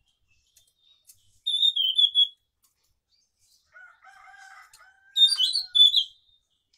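Caged anis macan (a spotted thrush) singing two short, loud, high-pitched warbling phrases, about a second and a half in and again about five seconds in. Between them, a rooster crows faintly and lower.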